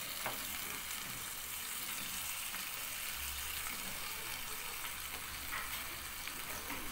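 Onion and spice masala sizzling steadily in a nonstick pan while raw chicken pieces are tipped in and moved with a wooden spatula, with a short tap about a quarter second in.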